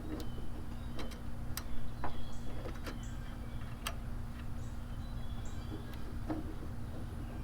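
Scattered light metallic clicks and taps of hands and small parts working on a VW Beetle's carburetor throttle linkage and cable, irregular and more frequent in the first few seconds.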